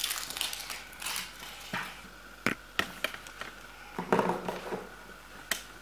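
Thin foil wrapper of a Kinder Surprise chocolate egg crinkling as small hands peel it off, with a few sharp clicks and cracks as the chocolate egg is broken open.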